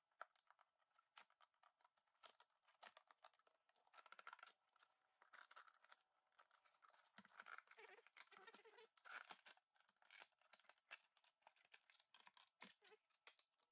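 Faint, irregular clicks and scratchy noises of a headlight's clear plastic lens being pried off its housing with a screwdriver, pulling apart the oven-softened rubber adhesive sealant around the lens edge.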